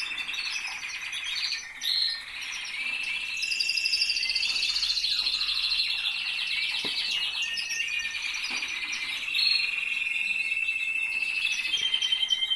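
Several canaries singing at once: long rolling trills and rapid warbled phrases overlapping without a break.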